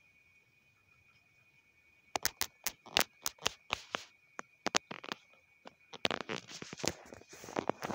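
Handling noise from fingers on the phone: irregular sharp clicks begin about two seconds in and turn into a denser crackling rustle after about six seconds. A faint steady high tone sits underneath.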